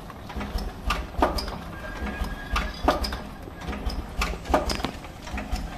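Automatic bag-in-bag tea bag packing machine running, giving pairs of sharp mechanical clacks about every 1.7 seconds over a low steady hum.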